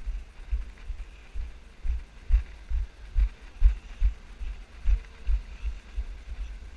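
Muffled low thuds of walking footsteps, about two a second, picked up through a GoPro camera carried by the walker.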